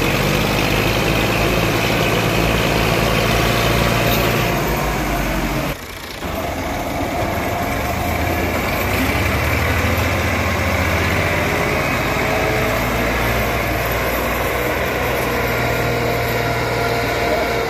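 Diesel tractor engines, a Massey Ferguson 240 among them, running steadily while working. The sound dips briefly about six seconds in, then carries on.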